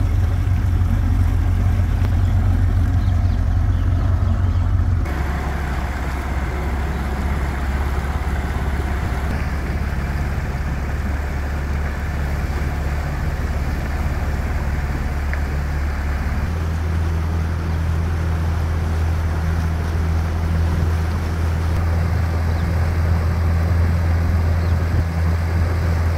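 Small outboard motor running steadily, pushing a small open motorboat along at cruising speed. The sound shifts abruptly about five seconds in, and the engine's low drone grows stronger around sixteen seconds.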